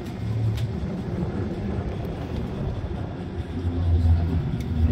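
Steady low rumble inside a cable-car cabin running along its cables, growing louder about three and a half seconds in.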